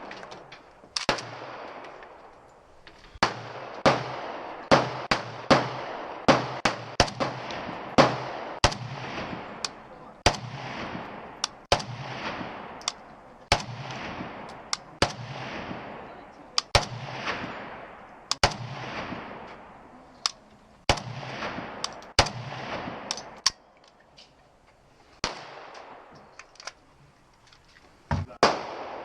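Gunfire at a shooting range: many shots fired at irregular spacing, often less than a second apart, each with a long echo trailing off, with a brief lull about three quarters of the way through.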